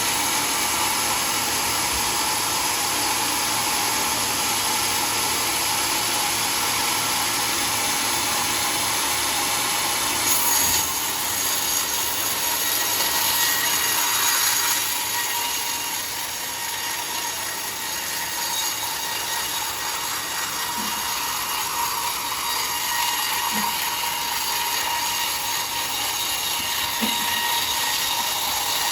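Homemade sawmill running steadily, its blade cutting through mahogany wood, with a slightly louder stretch about a third of the way in.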